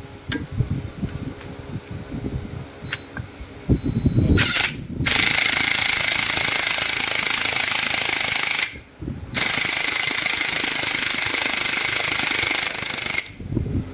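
Irregular clatter and knocks of parts being handled for the first few seconds, then a pneumatic air tool runs loud and steady in two long bursts of about three and a half seconds each, with a short pause between.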